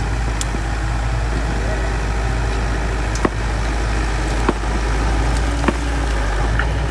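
Bulldozer's diesel engine running steadily, with a few sharp metallic clanks about halfway through.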